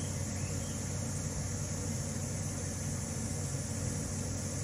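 A steady low mechanical hum under an even hiss of background noise, with no distinct calls or knocks.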